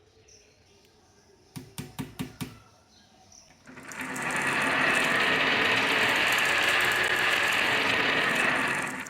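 A few sharp wooden clicks, then a steady rolling rattle lasting about five seconds as toys run down a HABA wooden wavy-slope track, stopping suddenly near the end.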